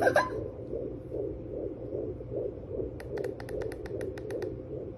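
SpringBud FD500B fetal doppler's speaker playing a baby's heartbeat in the womb: fast, even whooshing beats, about two and a half a second, with a faint steady hum under them. About three seconds in, a quick run of sharp clicks lasts for about a second and a half.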